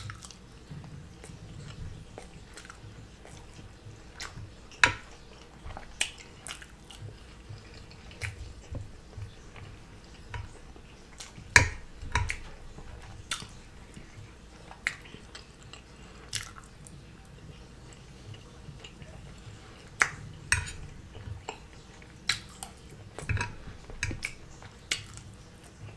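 Close, wet chewing and mouth sounds of a person eating scrambled eggs, scrapple and home fries, broken by irregular sharp clicks and taps, some from a metal fork on the plate.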